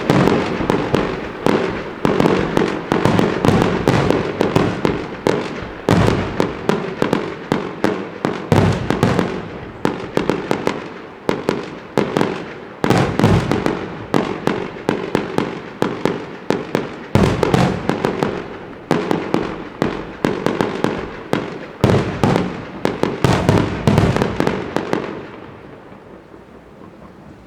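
Fireworks going off in rapid volleys of many sharp cracks and bangs, several per second, stopping about 25 seconds in and leaving only a quieter background.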